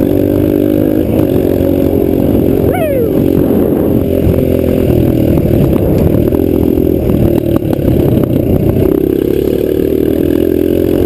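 Motorcycle engine running steadily under way, with clattering and rattling throughout.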